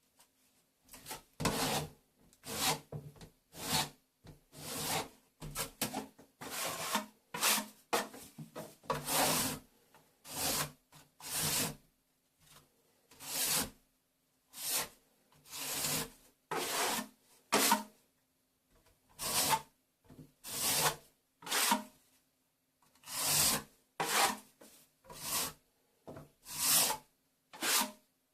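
Plastering trowel scraping wet-area base coat compound along a plasterboard join, in repeated short strokes about one a second with brief pauses between runs.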